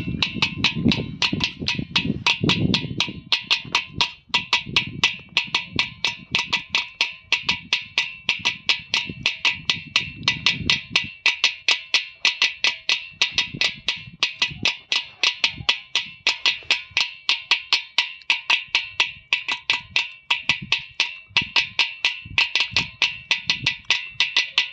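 Earthenware water pot (matka) played as a hand drum: a steady rhythm of sharp, clicky strokes at about four a second, with deep booms under them for roughly the first ten seconds.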